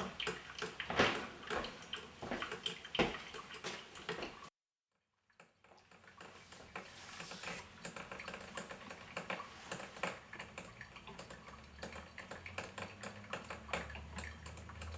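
Vintage Mr. Coffee grinder-brewer brewing: hot water sputtering and coffee dripping into the pot as a string of irregular crackles and ticks. The sound drops out completely for about a second around four and a half seconds in, and a low hum comes up near the end.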